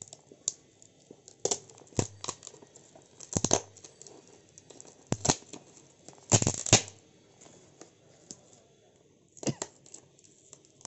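Printed paper wrapping being torn and crinkled by hand off a small box, in irregular sharp rips and rustles, the loudest rip about two-thirds of the way through.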